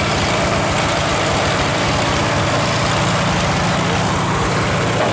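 Engine running steadily at constant speed, driving a shingle mill through a long flat belt, with the mill's continuous whir over the low engine hum.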